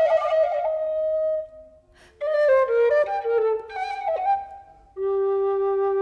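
Wooden recorder playing a classical melody: a phrase of notes, a brief break, a run of quick notes, then one long held note from about five seconds in.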